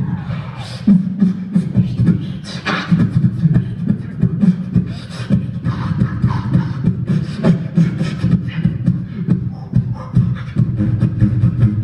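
Live solo beatboxing into a handheld microphone: a steady low bass hum made by the voice under a fast, dense run of mouth-made kick, snare and hi-hat clicks, with a held hummed note added near the end.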